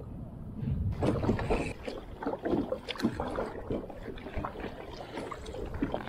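Small waves lapping and splashing against a kayak's hull, with scattered light knocks.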